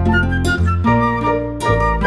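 Background music: a flute-like melody over a steady bass line.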